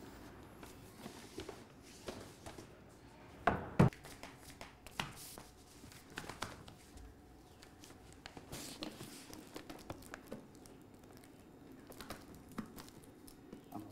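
A cardboard parcel being handled and its packing tape picked at: scattered taps, rustles and crinkles, with one louder thump just before four seconds in.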